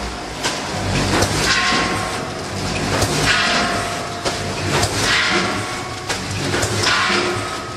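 Vertical form-fill-seal packaging machine running through its bagging cycle: a swelling hiss with sharp clicks and knocks repeating about every two seconds, over a steady low hum.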